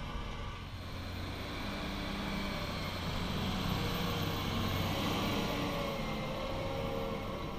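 Fendt 828 Vario tractor engine running steadily under load while it pulls a levelling blade through loose soil, with a continuous rush of soil and tyre noise under the engine drone.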